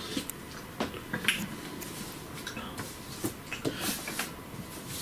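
Metal spoon clinking and scraping in a glass bowl, with slurping and mouth sounds of someone eating: short, irregular clicks and small wet noises.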